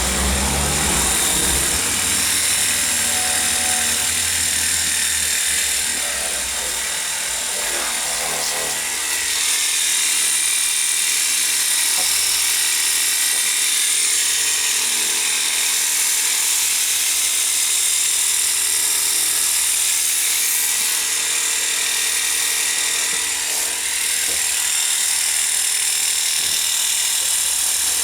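Cordless 20 V lithium-ion pressure washer running, its small electric pump motor whining steadily under a loud hiss of water spray.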